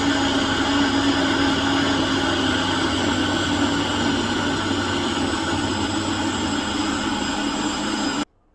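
Electric blender motor running steadily under load, blending tomatoes, onions and peppers into a purée; the hum cuts off suddenly about eight seconds in.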